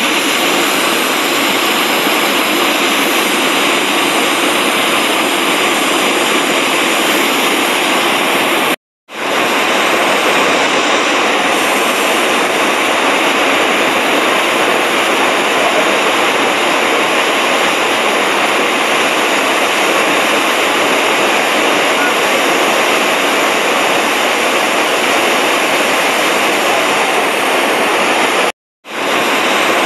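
Iguazu Falls' huge waterfall, a loud, dense, steady rushing of falling water. The sound breaks off for a moment about nine seconds in and again near the end.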